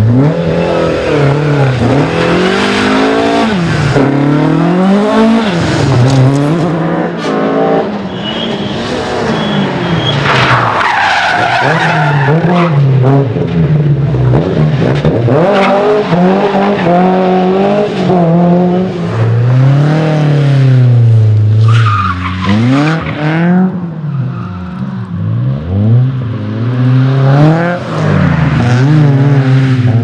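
Rally car engines driven hard, a Ford Escort among them, revving up and dropping back again and again on the gear changes and into corners. Tyres squeal briefly a couple of times.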